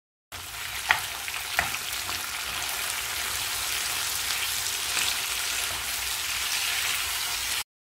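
Tomato wedges, shallots and dried red chillies sizzling in hot sesame oil in a frying pan as they are sautéed and stirred with a wooden spatula, with two sharp knocks about a second in. The sizzling cuts off suddenly near the end.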